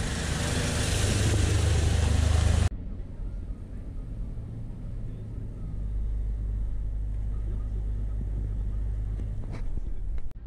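Toyota Land Cruiser Prado running, first heard close beneath the car as a loud rushing noise over a deep rumble. About two and a half seconds in this cuts off suddenly to a quieter, steady low drone of engine and road noise inside the cabin while driving.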